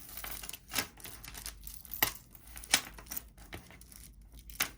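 A broken necklace chain and its pieces being handled: scattered small clinks and rustling, with a few sharper clicks.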